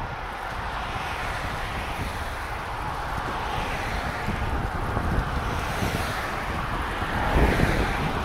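Wind rushing over the microphone of a moving bicycle, mixed with road noise. It builds a little, with a louder swell about seven seconds in.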